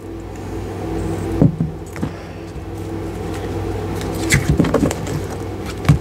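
Tarot cards being handled and shuffled: a few short, sharp card taps and snaps, over a steady low hum.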